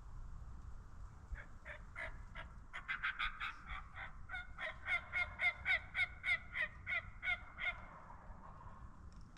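Wild turkey hen yelping: a long series of raspy, horn-like yelps that starts about a second in, then gets louder and settles into a steady run of about three to four notes a second before stopping near the end. The calls tell the hunters the flock is just across the road.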